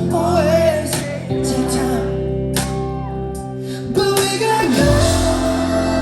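Live pop song played by a band through a venue's PA, with sustained chords, drum hits and some singing. A low falling sweep comes about three-quarters of the way through.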